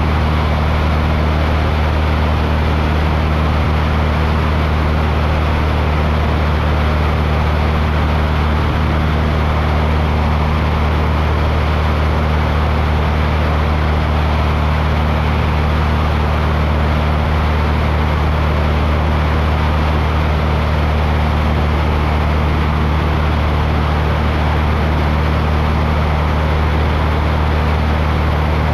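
Aircraft in flight: a steady engine drone, a low hum under an even rushing noise, with no change in pitch or level.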